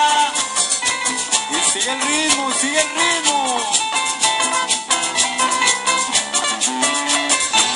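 Live tropical cumbia band playing, with a quick, steady shaker-percussion rhythm under melodic lines.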